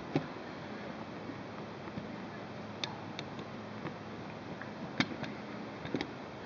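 A few sharp little clicks and taps from handling a small diecast metal-and-plastic model loader, over a steady background hiss.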